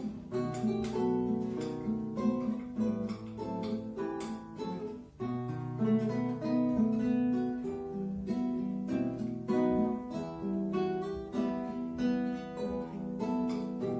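Two nylon-string classical guitars playing a slow plucked duet, a melody over low bass notes, with a brief break in the playing about five seconds in.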